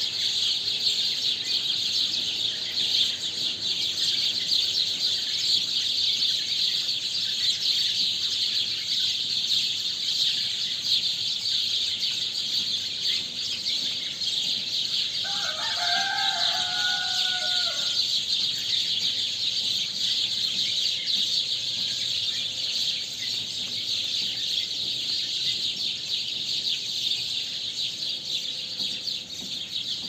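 Dense dawn chorus of many small birds chirping without a break, with a rooster crowing once about halfway through.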